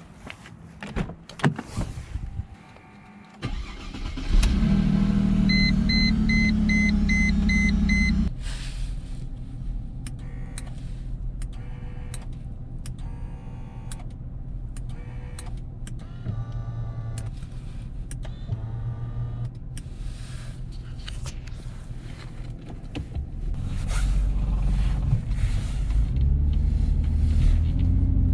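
Mercedes-Benz W203 C-Class started after a few clicks, running loud for a few seconds, then settling to a steady idle. A run of about eight evenly spaced warning beeps sounds just after it starts.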